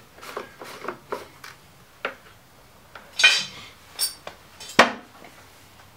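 Scattered plastic clicks and knocks from handling the mower engine's fuel cap and a plastic gas can with its spout, with a brief scraping rasp about three seconds in and a sharp click near the end.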